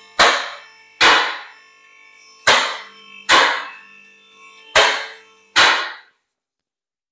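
Six hard hammer blows on the steel parts of a car's rear brake and hub, roughly one a second. Each blow rings briefly like struck metal. The sound cuts off abruptly after the last blow.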